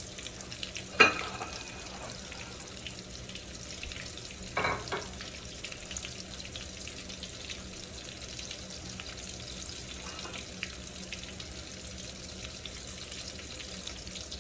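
Breaded chicken nuggets slow-frying in oil with a steady sizzle. A sharp knock about a second in, the loudest moment, and a shorter clatter near five seconds break through the sizzle.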